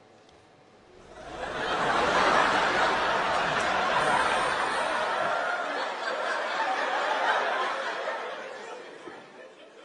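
Studio audience laughing: the laughter swells up about a second in, holds for several seconds, and fades away near the end.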